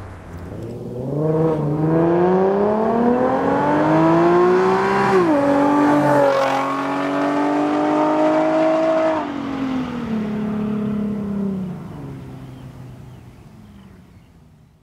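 Nissan 370Z's 3.7-litre V6 with a Fi valvetronic exhaust, valves open, accelerating hard in a drive-by. The exhaust note climbs steadily in pitch, drops sharply twice around five to six seconds in, holds, then falls away and fades out near the end.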